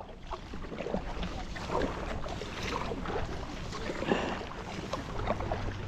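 Paddle strokes on open water: a stand-up paddleboard paddle dipping and splashing every second or so, with wind rumbling on the microphone.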